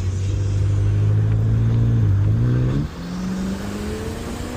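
Tuned BMW M5 Competition's twin-turbo V8, with titanium Valvetronic exhaust, accelerating hard: the engine note climbs, drops sharply on an upshift a little past halfway, then climbs again in the next gear.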